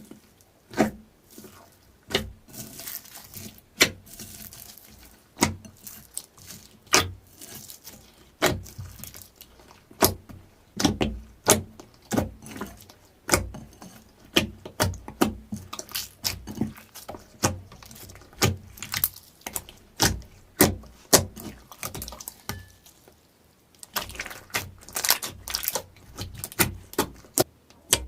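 Slime being squeezed and kneaded by hand, making irregular sharp wet clicks and pops, often several a second, with a brief lull a few seconds before the end.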